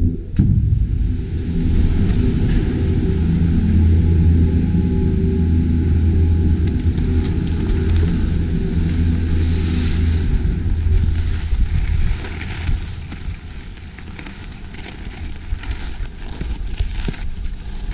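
Wind buffeting a handheld action camera's microphone, over a low rumble of skis running on snow during a downhill run. The rumble eases about twelve seconds in.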